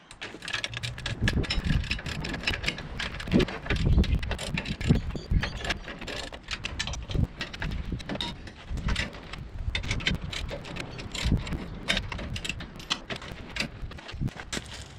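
Socket ratchet clicking in quick runs along with metal knocks and low thuds, as the bolts on a steel jockey wheel clamp are worked.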